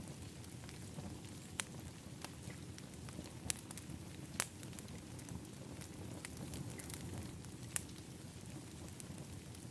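Outdoor wood fire in a fire pit crackling, with sharp, irregular pops every second or two over a steady low rumble.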